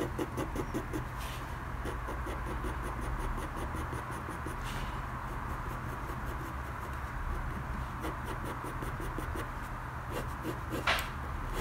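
Red colored pencil hatching on paper: quick scratching strokes, distinct at first, then blending into a steady rasp, with one sharper tick near the end.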